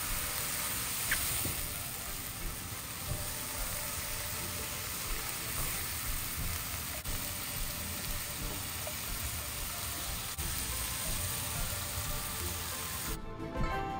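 Diced vegetables sizzling steadily in a hot nonstick frying pan as they are stirred with a silicone spatula. Near the end the sizzle gives way to soft background music.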